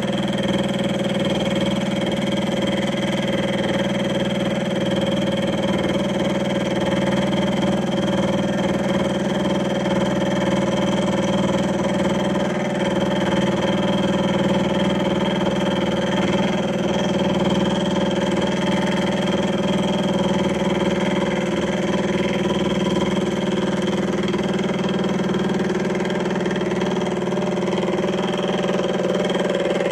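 Milling machine running steadily with a 10 DP gear cutter turning on its arbor, cutting a tooth into a metal gear blank.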